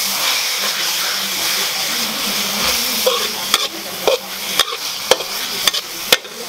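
Rice vermicelli and grated carrot stir-frying in a metal wok: a steady sizzle while a metal ladle stirs and scrapes the pan. From about three seconds in, the ladle knocks sharply against the wok about twice a second.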